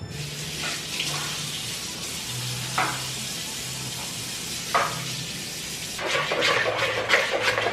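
Kitchen tap running into a sink, a steady rush of water that starts suddenly. It gives way to busier clattering about six seconds in.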